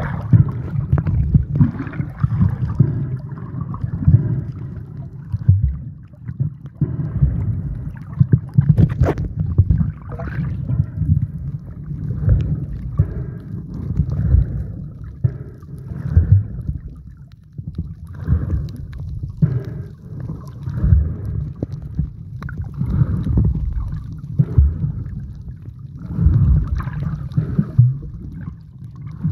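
Muffled underwater water noise from a submerged camera moving along with a snorkeller, surging and easing every second or two.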